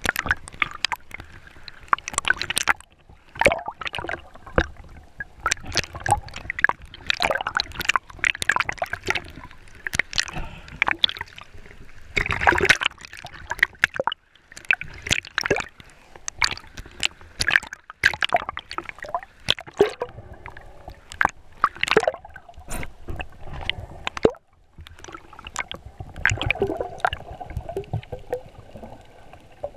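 Water gurgling and sloshing around a GoPro in its waterproof housing as a spearfisher swims underwater, with irregular splashes, crackles and knocks and one louder surge about midway.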